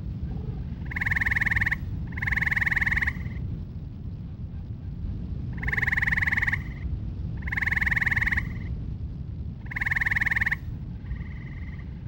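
Gray treefrog calling: six rapidly pulsed musical trills of about a second each, with short gaps between them. The last trill is fainter.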